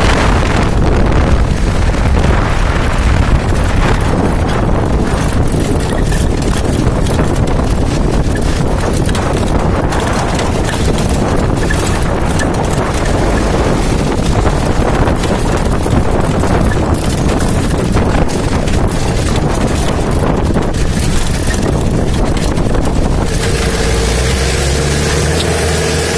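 Jeep driving off-road on a dirt track, its engine almost buried under heavy wind buffeting on the microphone. About three seconds before the end the buffeting eases and the engine's low steady drone comes through.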